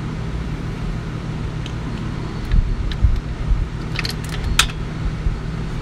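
Dull knocks and then a few sharp clicks about four seconds in, from hand work on parts in the open top end of a Detroit Diesel 6V92 engine, over a steady low background hum.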